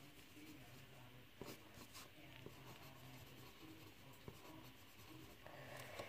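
Faint scratching of a drawing tip moving over paper as a sketch is drawn by hand, with a few soft ticks.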